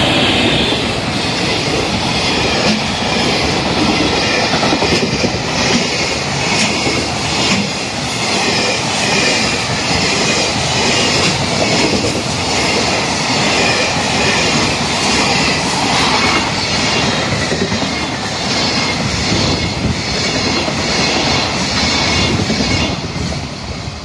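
JR Freight EF210 electric locomotive and its container wagons passing close by: a loud, steady rumble with the wheels clacking over the rail joints, easing slightly near the end as the last wagons go by. A level-crossing alarm rings over the train noise.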